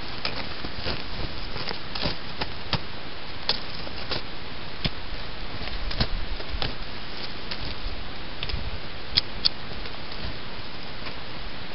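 Steady rushing noise, like wind over the microphone, with irregular sharp crunches about every half second to second, typical of boots on packed snow.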